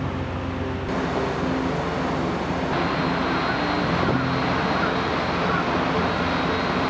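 Steady rushing rumble on the open deck of the ferry Salvia Maru, from the ship's machinery and wind, with a thin high steady tone through the second half and quiet background music underneath.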